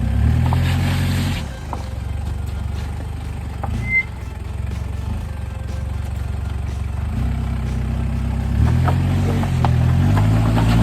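Four-by-four's engine under load as it crawls over rocks: a short burst of throttle at the start, then running low and steady, and revving up again in two pushes near the end.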